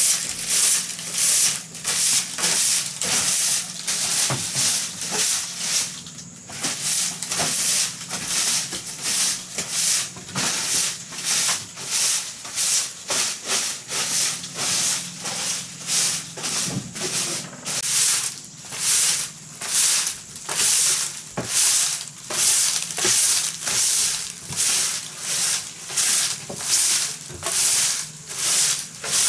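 Rhythmic scraping or rubbing strokes, about two a second, with a short break about six seconds in.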